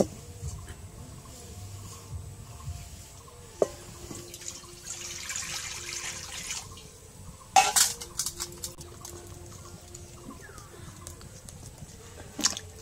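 Water poured from a steel pot into an iron wok on a clay stove, a hissing splash lasting about two seconds, followed by a loud metallic clatter. Near the end, a sharp splash as cut potato pieces are dropped into the water.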